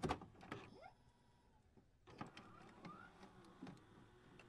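Faint electronic glitch sound effects: scattered clicks and short blips, with a short rising chirp near the end and a near-silent gap about a second in.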